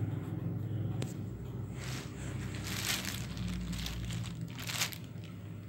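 Clear plastic shoe bags crinkling in irregular rustles as a sneaker is handled among them, over a steady low hum.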